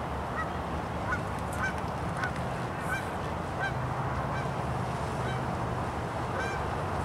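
Distant birds giving short calls, one or two a second, over the steady low drone of a jet ski's engine running out on the river.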